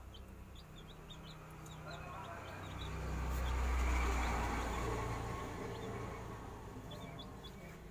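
Baby chicks peeping in short high rising cheeps, scattered at the start and again near the end. In the middle a low rumble swells up to the loudest point and fades away.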